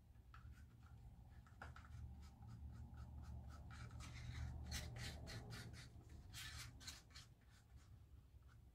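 Faint, repeated short scrapes and taps of a wooden craft stick working acrylic paint into a sink strainer, coming quicker and louder in the middle.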